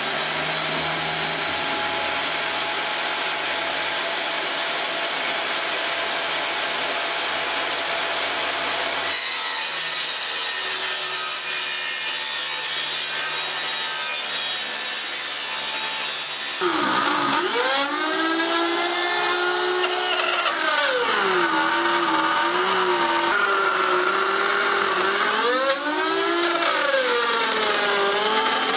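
A table saw running as it rips a sheet of quarter-inch birch plywood. After about seventeen seconds a hand router takes over, routing a wing rib along a template; its whine dips and recovers in pitch several times as it cuts.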